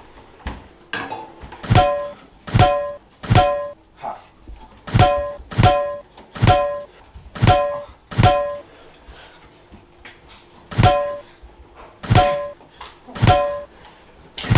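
A frying pan striking again and again, each hit a thunk followed by a ringing metallic clang of the same pitch. There are about a dozen hits in quick runs of three to five, with a short pause about halfway through.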